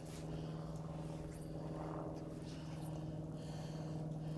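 A steady low hum with a few faint, brief swishes.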